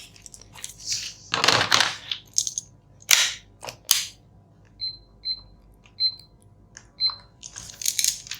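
Clicks and rustles of meter probes and a circuit board being handled, with four short high beeps from a multimeter's continuity tester in the middle: a cable being checked for continuity.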